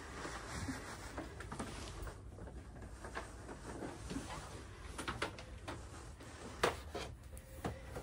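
Faint steady background noise with a few scattered light clicks and knocks, the sharpest about two-thirds of the way through.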